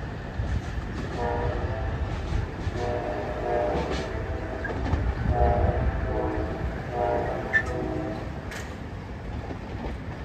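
NJ Transit commuter train rolling away with a steady low rumble while its horn sounds four blasts, the middle ones long: the warning given for the road crossing just ahead.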